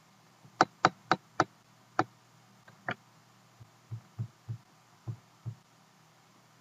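Computer mouse clicks: a quick run of four sharp clicks, two more spaced out, then several softer, duller clicks.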